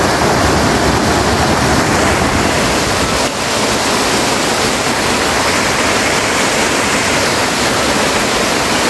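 Muddy storm runoff gushing loudly down a stony channel, then a small flood-swollen waterfall pouring into a pool. The rush of water is steady throughout, with a brief dip a little over three seconds in.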